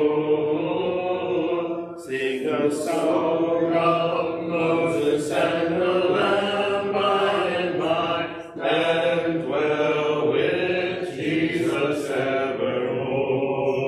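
A congregation singing a hymn a cappella, many voices together with no instruments, holding long notes.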